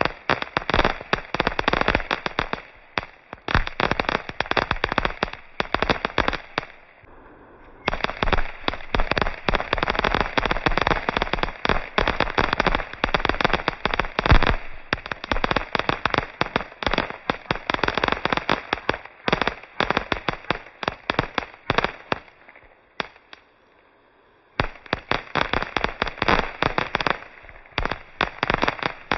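Fireworks display: a dense, rapid barrage of crackling bangs and pops, easing off briefly about seven seconds in and again near twenty-three seconds before picking up again.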